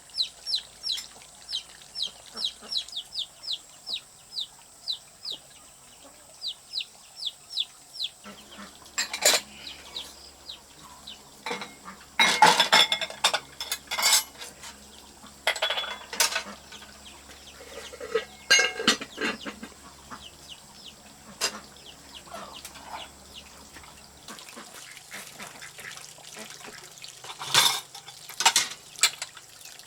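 A bird peeping in a quick, even run of short falling chirps, about two or three a second, for the first eight seconds or so. After that comes a clatter of dishes and utensils: scattered knocks and clinks, the loudest a few seconds after the peeping stops and again near the end.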